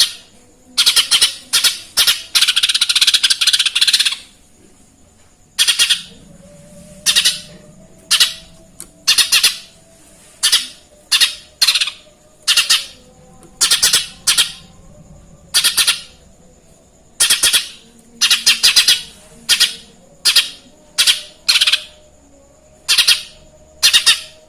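Cucak ijo mini, a small leafbird, singing loud short bursts about once a second, with a longer run of song from about one to four seconds in. The song is filled with mimicked Eurasian tree sparrow (burung gereja) chirps.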